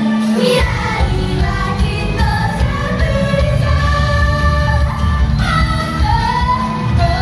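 Japanese idol group's live pop song: several young women singing in unison into microphones over a loud backing track, with the bass and beat coming in about half a second in. Picked up on a smartphone's microphone in the hall.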